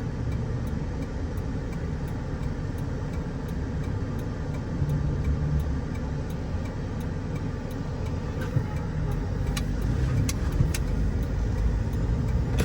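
Car on the move: a steady low rumble of engine and road noise, with a few short sharp clicks near the end.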